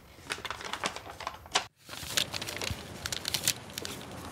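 A sheet of paper crinkling and being creased in short, irregular crackles as it is folded into an origami crane, with a brief drop to silence a little under two seconds in.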